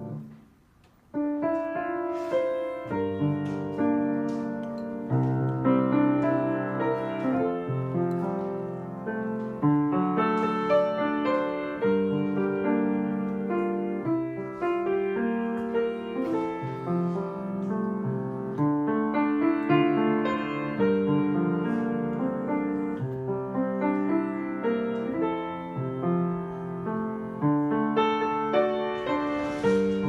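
Background piano music. It drops out for a moment near the start and then carries on with a steady run of notes.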